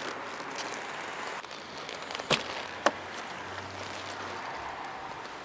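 Two sharp clicks about half a second apart as the driver's door of a Mercedes W210 E320 is unlatched and opened, over steady outdoor background noise.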